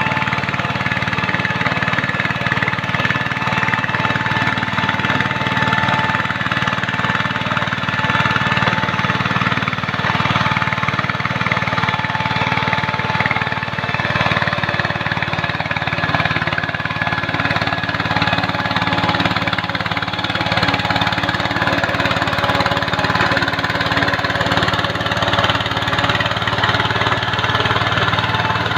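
Walking tractor's single-cylinder diesel engine running steadily as it pulls a mud-leveling board through a flooded paddy on cage wheels.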